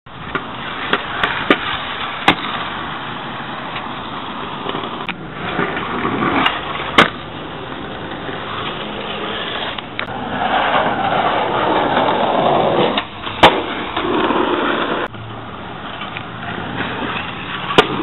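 Skateboard wheels rolling on concrete, with several sharp clacks of the board hitting the ground.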